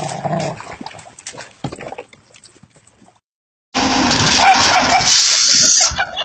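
A dog's voice and splashing as it swims in the water beside a dock. After a brief silence, a loud rush of noise begins suddenly and ends with a splash as a bicycle is ridden off the end of a dock into a lake.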